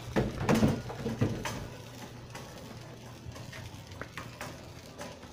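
A loaded metal shopping cart rattling and clattering as it is pushed, with a bunch of louder knocks in the first second and a half and lighter clicks after, over a steady low store hum.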